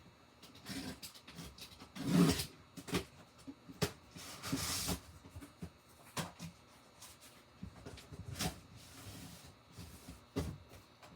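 A cardboard shipping box being opened and its contents handled: scattered knocks and clicks, a loud thud about two seconds in, and a longer scraping, tearing noise around four to five seconds in.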